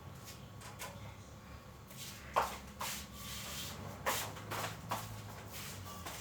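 A few short, light knocks and clacks of small objects being handled, the loudest about two and a half seconds in and again about four seconds in, over a low steady hum.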